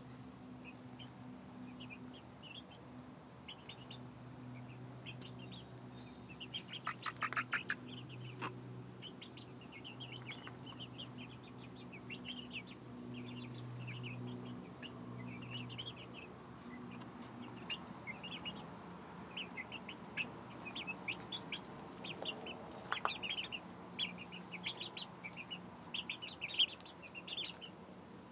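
Young chicken pullets peeping and chirping in many short, high calls, with louder bursts of calls about a quarter of the way in and again about four-fifths of the way through. A steady low hum runs underneath.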